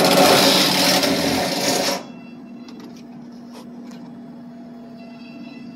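Loud, harsh tool noise lasting about two seconds that cuts off sharply, then a low steady hum.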